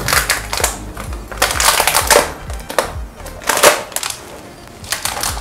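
Clear protective plastic film being peeled off a laptop's underside, rustling in several noisy bursts with a short lull near the end.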